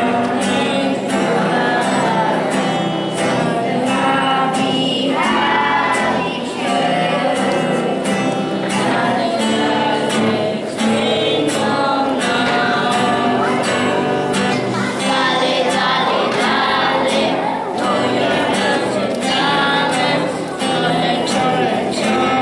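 Children's choir singing a Spanish song together, accompanied by a strummed acoustic guitar.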